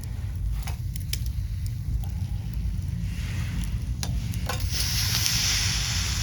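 Campfire crackling with a few sharp pops, while a hissing sizzle builds from about halfway through and grows loud near the end: snow crab juices steaming and sizzling over the fire.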